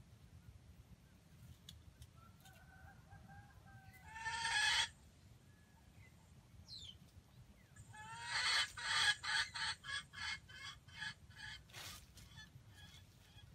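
Junglefowl calling: a short loud call about four seconds in, then a run of about eight clucks, a few a second, fading away.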